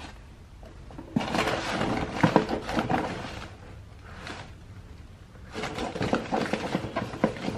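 Objects clattering and scraping against one another as a box of mixed items is rummaged through by hand, in two bouts with a short pause between.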